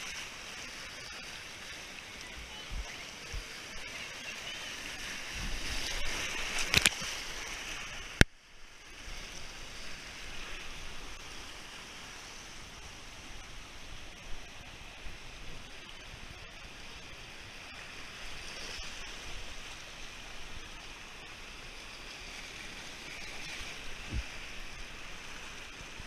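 Whitewater of a rocky mountain creek rushing and splashing around an inner tube riding the rapids, loudest about six seconds in. About eight seconds in there is one sharp click, the water sound dips for a moment, then the steady rushing carries on.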